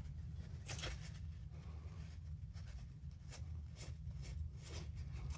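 Faint, scattered light clicks and scrapes of hands working a small ratcheting drill adapter and applying epoxy to it, over a low steady hum.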